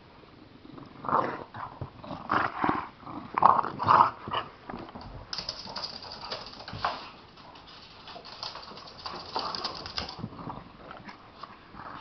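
An English bulldog and a chihuahua play-growling at each other, in a run of loud short bursts during the first few seconds, then quieter and more scattered.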